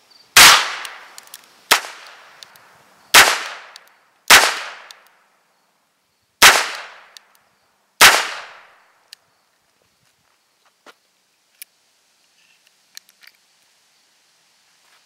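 Six shots from a Harrington & Richardson Model 622 .22 rimfire revolver, fired slowly one to two seconds apart. Each is a sharp crack with a short fading tail, the second a little softer. A few faint clicks of handling follow.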